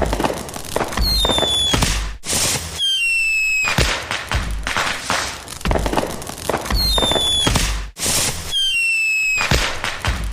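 Fireworks going off: dense crackling and popping, with whistling shells that each give a short, slightly falling whistle, two in quick succession about a second in and again about seven seconds in.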